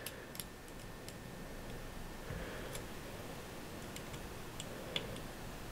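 Faint, irregular light metallic clicks from hands and an Allen wrench working on the elevation turret of a Vortex PST Gen II riflescope, as the zero stop turret's set screws are tightened.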